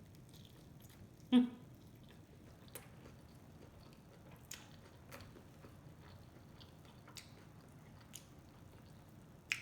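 Close-up mouth sounds of a person chewing a chicken sandwich, with faint wet clicks scattered throughout. About a second and a half in there is a short voiced sound from the eater.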